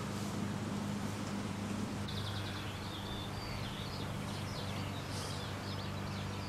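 Small birds chirping in quick, short, repeated notes, starting about two seconds in, over a steady low hum.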